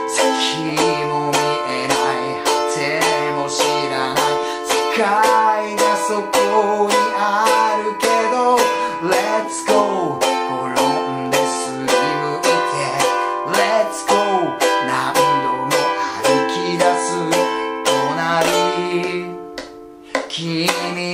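A man sings in Japanese while strumming chords on a ukulele in a steady rhythm. The strumming and singing come to a stop near the end on a held final chord.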